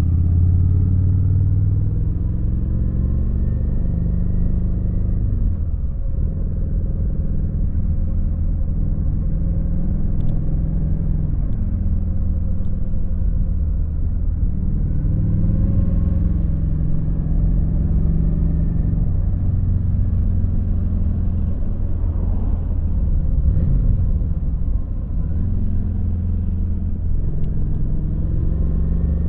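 Kawasaki VN900's V-twin engine running as the motorcycle is ridden along, a deep rumble whose pitch drops and rises again several times as the throttle is eased and opened and the gears are changed.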